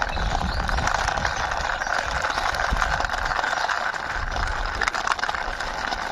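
Small plastic toy car pushed along by hand, its wheels rolling steadily over the ground with a rattling grind full of small clicks.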